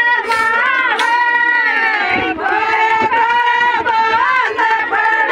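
A group of women singing a folk song together, high voices holding long wavering notes.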